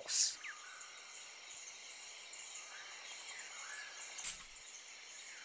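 Faint cartoon outdoor ambience of birds chirping and insects trilling steadily. Two brief hissy swishes stand out, one right at the start and one about four seconds in.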